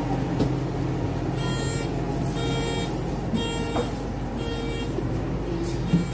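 The natural-gas engine of a Scania Unvi Urbis double-decker bus running steadily, heard from inside the cabin. Four short electronic beeps sound about a second apart in the middle.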